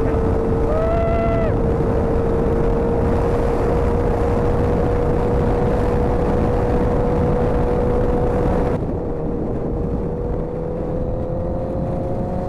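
Motorcycle engine running at a steady cruising speed under heavy wind rush. A short pitched tone sounds about a second in. Near the end the wind noise drops and the engine note slowly rises.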